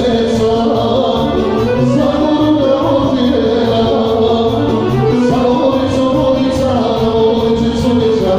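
Live music from an electronic keyboard: a steady repeating beat in the low end under a sustained melody line, with singing.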